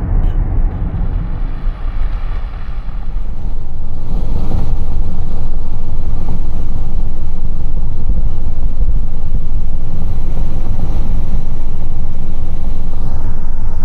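Car driving, a loud steady low rumble of road and wind noise on the microphone that swells about three and a half seconds in and then holds steady.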